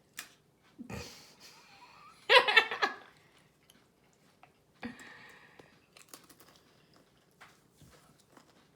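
Tortilla chips crunching and being chewed in small, scattered bursts, with a short burst of a child's giggling about two seconds in, the loudest sound.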